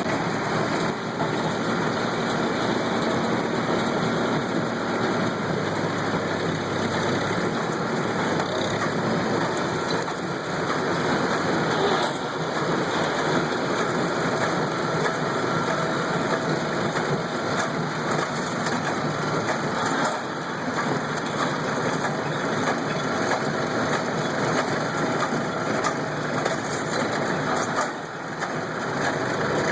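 Kubota tractor engine running steadily while pulling a hay baler at work, with a dense, even mechanical clatter and brief dips in loudness a few times.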